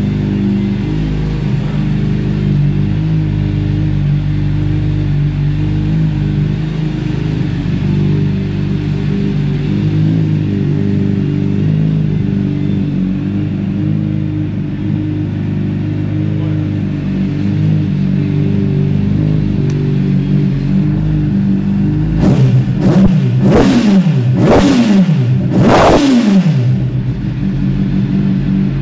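Honda CBR600RR's inline-four engine idling steadily, then blipped several times in quick succession near the end, each rev rising and dropping back to idle, the last ones the loudest.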